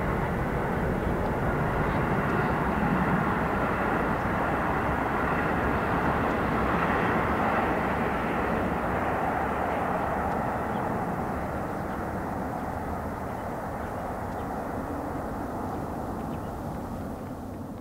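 Pratt & Whitney PW4156A turbofans of an Airbus A310-325 climbing away after takeoff: a steady jet rumble that slowly fades as the airliner recedes. It dies away near the end.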